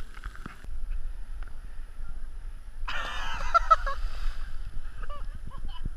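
A person hitting the sea after a jump from a pier: a splash about three seconds in that lasts a little over a second, with a few short high calls over and after it.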